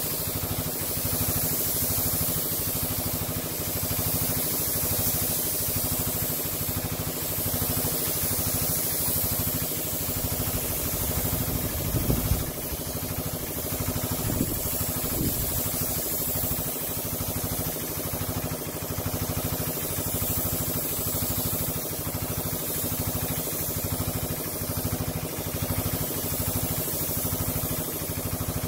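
Air compressor running steadily with an even low chug, under the constant hiss of a paint spray gun laying on a coat. A brief louder sound about twelve seconds in.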